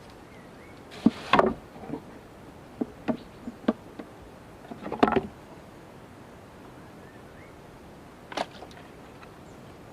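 A series of irregular knocks and clatters, some in quick clusters, over a quiet background with faint short chirps.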